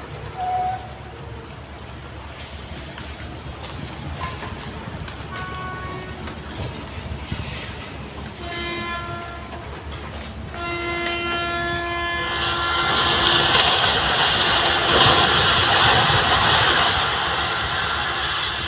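A horn gives short toots, then a long steady blast from about ten seconds in. About two seconds later a loud crashing noise of falling rubble rises over the blast as the heavily damaged five-storey building collapses.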